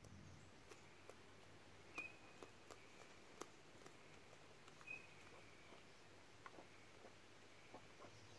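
Free-range chickens pecking and foraging: a scatter of faint sharp ticks, with two short high chirps about two and five seconds in.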